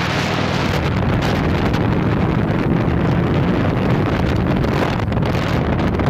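Wind rushing over a helmet-mounted microphone on a moving motorcycle, steady and loud, with the engine running underneath.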